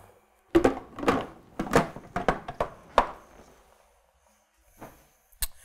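Hard plastic clicks and knocks as a food processor attachment's lid and pusher are fitted onto a stand mixer. There is a quick run of a dozen or so clicks over the first three seconds, then two lighter taps near the end.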